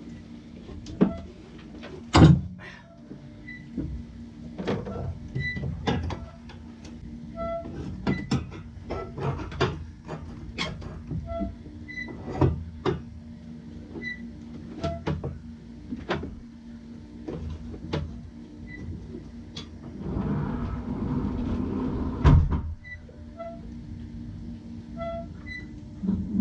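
Hand tools clinking and knocking on a sailboat's metal rudder steering linkage as it is taken apart: a run of sharp clicks and taps, with a rougher scraping stretch about twenty seconds in.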